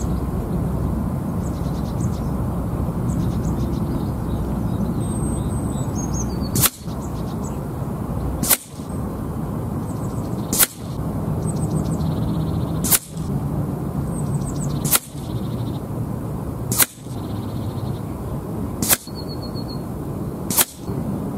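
A sub-12 ft-lb PCP air rifle fired eight times in quick succession at a target, each shot a sharp crack about two seconds apart, starting about a third of the way in. Under it, wind rumbles steadily on the microphone and birds chirp faintly.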